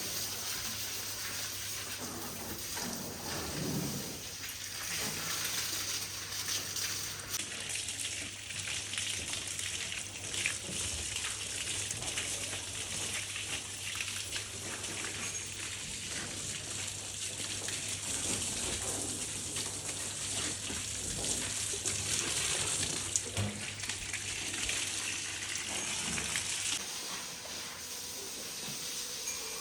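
Running water gushing steadily, growing stronger and hissier about seven seconds in and easing off again near the end, with a steady low hum underneath.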